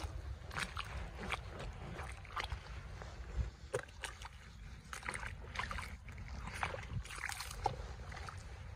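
Viking Frost Fighter rubber boots stepping through watery clay mud: irregular squelches and sloshes as the boots sink in and pull out with each step.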